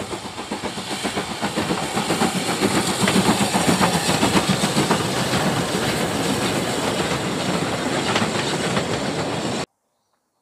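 A steam locomotive hauling a train past at speed: a rapid clattering beat of exhaust and wheels with steam hiss, building over the first few seconds, then cutting off suddenly near the end.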